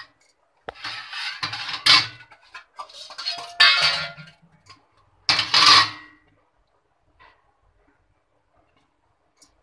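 Steel kitchenware clattering: a steel plate and a steel mesh strainer knocked and moved about in three short bursts in the first six seconds, with a single faint tick a little later.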